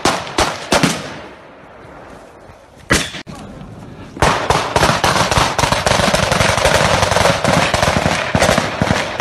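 Small-arms fire: a few single shots in the first second, one more shot about three seconds in, then from about four seconds in a sustained stretch of rapid automatic fire, the shots running into one another.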